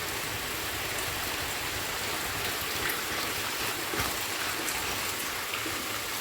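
Heavy rain falling, a steady hiss and patter.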